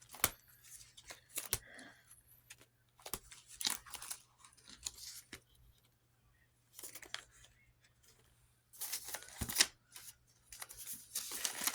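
Paper and plastic rustling from cash and budget envelopes being handled, with scattered short clicks and scrapes and brief pauses between them.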